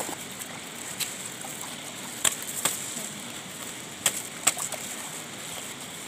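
Plastic bag crinkling in a few short, sharp crackles as small fish are handled out of it, over the steady rush of a stream.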